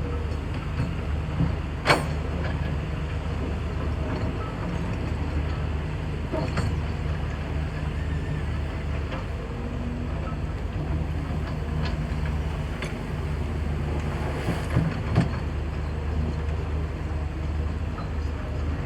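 Large hydraulic excavator's diesel engine running steadily, with a few sharp knocks from the working machine, the loudest about two seconds in and another pair near fifteen seconds.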